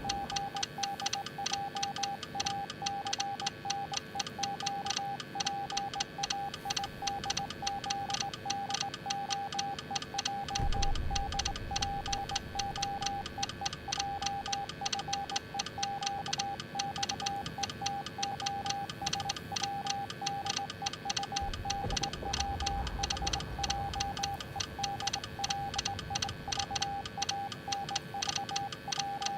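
Morse code sent as a single steady beep, keyed on and off in dots and dashes, over a rapid regular clicking. Low rumbles come in about ten seconds in and again about twenty-two seconds in.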